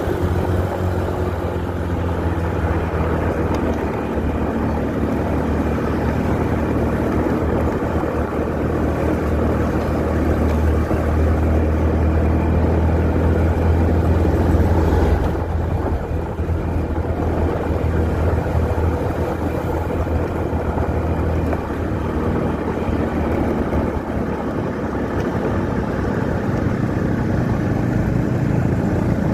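Steady riding noise heard from on board a moving motorcycle: its engine running with wind and road noise, among other traffic on the road.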